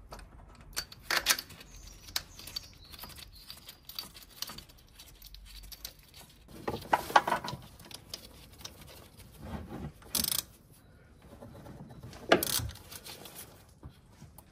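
Scattered metal clinks, scrapes and knocks of a belt idler pulley being fitted and bolted in place by hand, with a few louder clacks.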